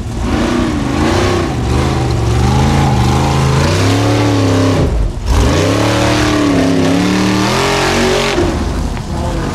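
Formula Offroad buggy's engine revving hard under load on a steep dirt climb, its pitch rising and falling with the throttle. It breaks off for a moment about halfway through, then comes back at high revs.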